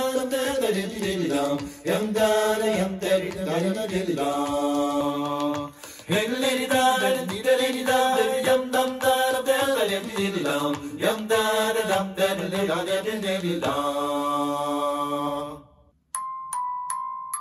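Music played back through a portable Bluetooth speaker: a chant-like vocal passage of long held sung notes that stops about fifteen and a half seconds in. After a brief silence, short bell-like mallet notes begin near the end, a few a second.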